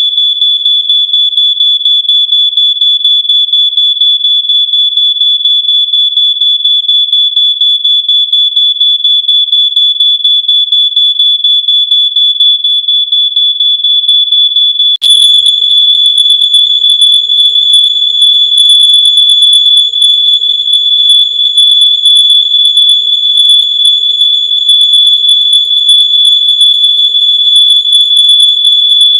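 Smoke alarm sound stacked on itself many times into one continuous, piercing high-pitched tone with fast pulsing, about five or six pulses a second. About halfway through it suddenly becomes louder and denser.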